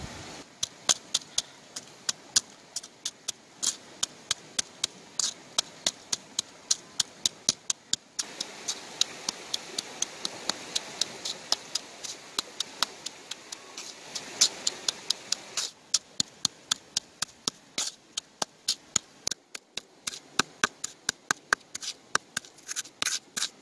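Hand-held stone pestle pounding chilies and salt in a coconut-shell bowl: sharp, quick knocks of stone on shell, about three to four a second.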